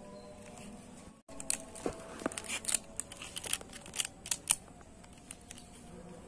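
Small foil pesticide sachet being torn open and crinkled between the fingers: a quick run of sharp crackles and rips from about a second and a half in, dying away by four and a half seconds.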